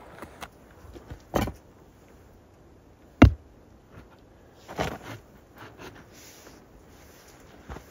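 Hollow clay bricks being set down and knocked into place, three knocks spread over a few seconds, the second the sharpest and loudest.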